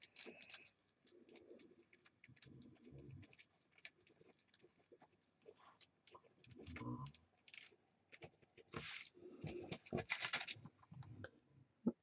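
Faint scratching and ticking of a white pen drawn over paper, outlining painted bricks. There are soft low rustles of the hand and paper in between, busiest a little before the end.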